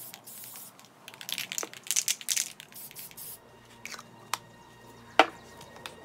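Aerosol spray-paint can hissing in short bursts, then a few sharp clicks and one louder knock about five seconds in as the can is set down on the table.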